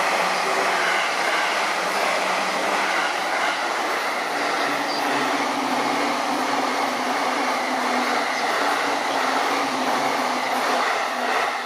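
Electric trains running through a station without stopping: the JR East 651 series limited express and then a JR East E233/E231-type commuter EMU, making a continuous loud rumble of steel wheels on rail. A steady hum joins in about four and a half seconds in, and the noise falls off just before the end.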